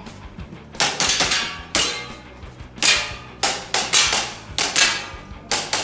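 Gas blowback gel blaster pistol firing a rapid, uneven string of about a dozen shots, some in quick pairs, each a sharp crack of gas and slide cycling.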